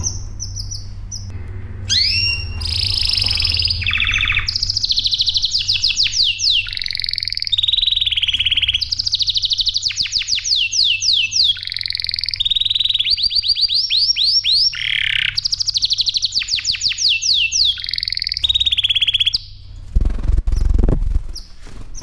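Male canary singing a long, varied song starting about two seconds in: fast trills of repeated high notes, each run giving way to a new pattern every second or so. The song stops near the end, followed by a few low thumps.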